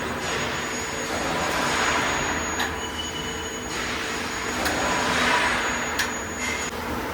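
CNC up-down sheet-metal folding machine running: a steady hissing whir with a faint high whine, broken by three sharp clicks spread through the middle and later part.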